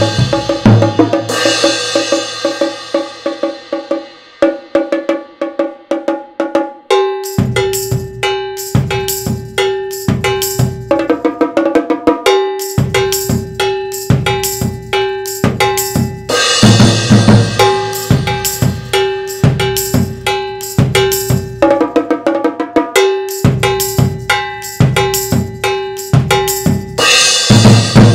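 Multi-percussion solo played with drumsticks: fast strokes across concert toms, snare and bongos, with cymbal crashes near the start, about midway and near the end. From about seven seconds in, a metal instrument is struck again and again on one steady ringing note.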